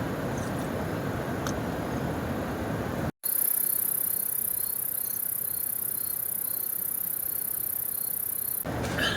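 Night insects, crickets, trilling in a steady high-pitched drone, with a repeated chirp about twice a second. It is preceded by a few seconds of steady rushing noise and starts abruptly at a cut.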